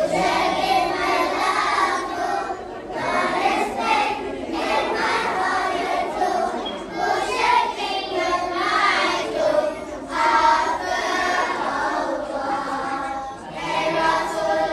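A group of young schoolchildren, boys and girls, singing together as a choir.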